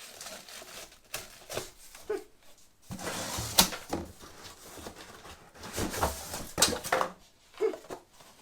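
Parts and packaging being handled during an unboxing: irregular clicks, knocks and rustling, with two longer stretches of rustling about three seconds in and again around six seconds.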